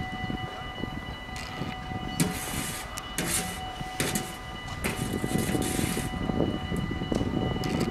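Railway level-crossing warning bell ringing steadily at a half-barrier crossing, over a low rumbling background with a few passing gusts of hiss.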